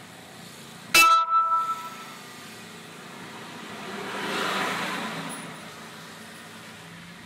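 Steady road and engine noise inside a car driving slowly. About a second in there is a sharp, loud knock that rings briefly, and a little past the middle a rush of noise swells and fades over about two seconds.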